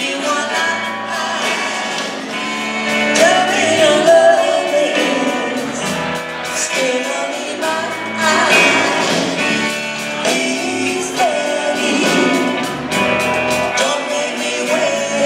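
Live rock and roll band playing: electric guitars and a drum kit keeping a steady beat, with a singer's voice carrying the melody.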